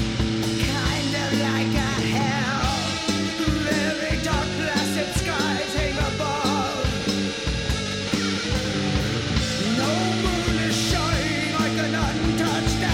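Rock band playing live: electric guitar and bass hold sustained chords over steady drum hits, with a wavering lead melody above.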